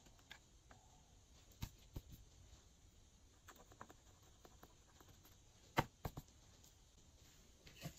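Faint ticks and scrapes of a thin metal pick digging pressed eyeshadow out of a palette's pans, with two louder knocks about three-quarters of the way through as the palette is tapped over a glass dish.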